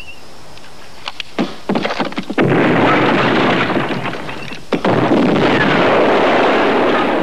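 Action-film battle effects: a few sharp gunshots, then an explosion about two and a half seconds in with a long noisy aftermath. A second blast follows near the five-second mark and slowly fades.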